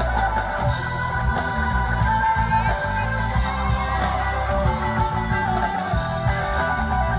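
Rock band playing: guitars over a steady bass line, with some singing.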